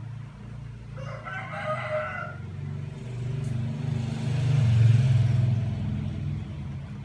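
A rooster crows once, for about a second and a half, over the steady low hum of a motor vehicle engine that swells to its loudest about five seconds in and then fades.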